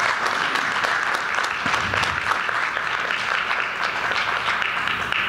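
Church congregation applauding: a dense, steady patter of many hands clapping.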